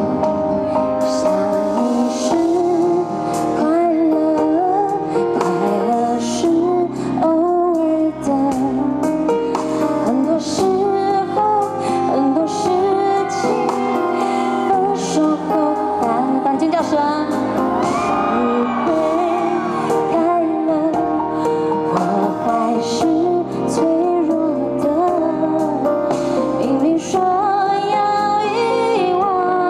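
A woman singing a Mandarin pop song live over backing music, amplified through the stadium's loudspeakers.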